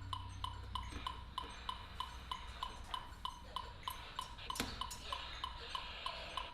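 Steady, even ticking, about three ticks a second, over a low hum, with a few sharper clicks about four and a half seconds in, within a contemporary chamber music performance.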